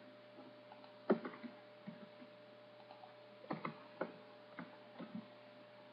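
Scattered clicks of a computer keyboard and mouse during copy-and-paste editing: one sharp click about a second in, then a cluster of about half a dozen past the middle. A faint steady electrical hum runs underneath.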